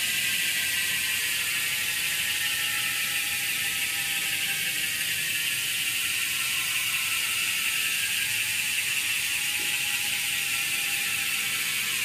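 Road bike's rear wheel spinning freely in a work stand, the freewheeling hub giving a fast, steady ratcheting buzz with a whir. The pitch sinks slowly as the wheel coasts down.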